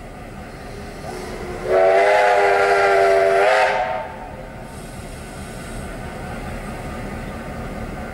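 Steam locomotive whistle, one blast of about two seconds that slides up into its pitch as it starts, over a steady background rumble.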